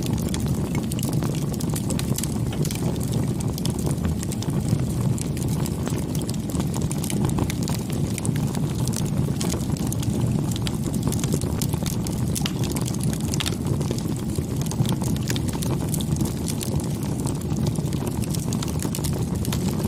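Wood fire burning: a steady low rumble with frequent sharp crackles and pops throughout.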